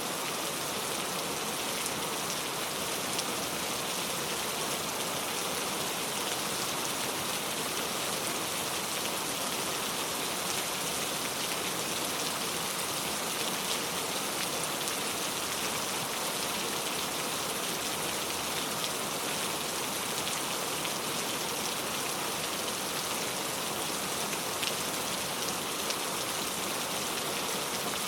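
Heavy rain falling steadily on a leaf-covered road, a constant dense hiss with scattered sharper drop taps.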